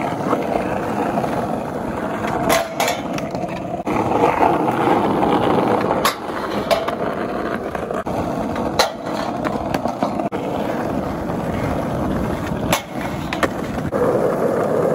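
Skateboard wheels rolling over rough asphalt with a steady grinding rumble, broken by several sharp wooden clacks of the board's tail popping and the board landing back on the street.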